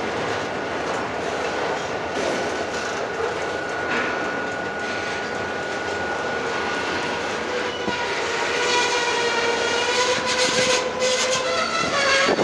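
Freight train's flatcars and covered hoppers rolling across a steel truss bridge: a steady, loud rumble of wheels on rail with some clicking. About eight seconds in, a sustained pitched tone with a slightly wavering pitch comes in over the rumble and grows louder toward the end.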